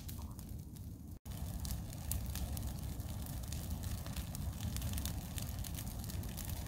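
Small outdoor brush fire crackling, with frequent sharp pops over a steady low noise. It starts abruptly about a second in, after a brief stretch of quieter outdoor ambience.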